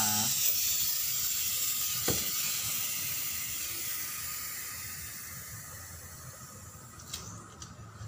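Pressurised gas hissing out of a refrigerator's charging hose or service valve. The hiss fades steadily as the pressure bleeds off, with a click about two seconds in and a few sharp ticks near the end.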